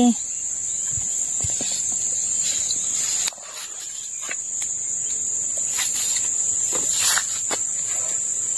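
A steady high-pitched insect trill, from crickets or similar insects, goes on throughout. Faint short knocks and splashes come from rubber toy ducks being picked up in shallow water.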